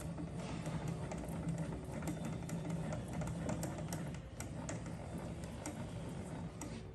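Knee of a Clausing 8540 horizontal milling machine being raised by its hand crank: the elevating screw and gearing give a continuous run of rapid mechanical ticking and clatter.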